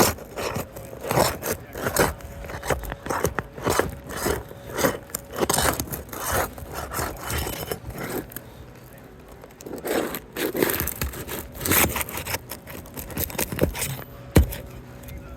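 A pry tool scraping and working under asphalt roof shingles in short, irregular strokes, loosening the seal and nails of the shingles around a hail-damaged one. There is a sharp knock near the end.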